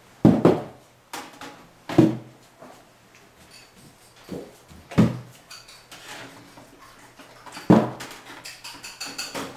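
Computer case side panel knocking against the metal chassis as it is fitted on: four sharp clanks a few seconds apart, with lighter rattles and taps between them.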